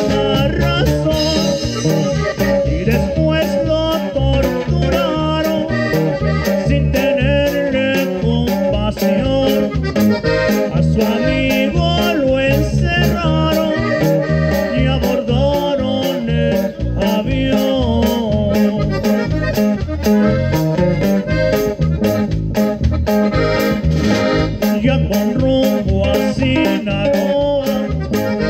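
Norteño band playing live: a red button accordion leads the melody over bajo sexto, guitar and a drum kit keeping a steady beat.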